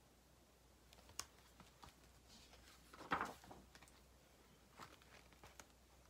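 A page of a hardcover picture book being turned by hand: a light click, then a brief paper rustle about three seconds in, and a fainter one near the end.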